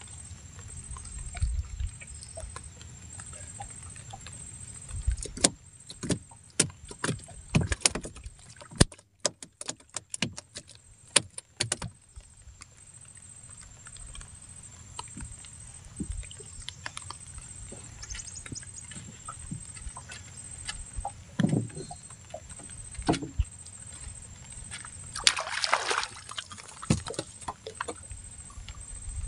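Small wooden boat on calm water: water lapping at the hull, with scattered sharp clicks and knocks, many of them between about five and twelve seconds in. Near the end a short splashing burst as a fish is hauled from the water on a hand line.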